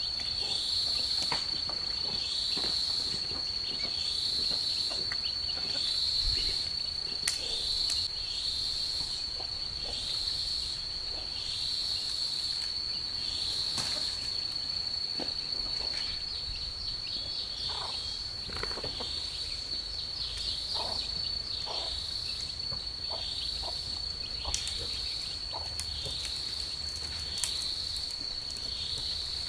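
Insects calling in a steady high-pitched chorus, with a pulsing layer that swells about once a second. Scattered short knocks and rustles of bamboo poles being handled come through now and then.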